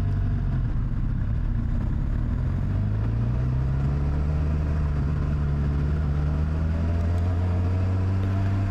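Suzuki GSX-R 600 K9's inline-four engine running at low revs while riding in traffic. Its pitch is steady at first, then rises slowly a few seconds in as the bike speeds up, and holds.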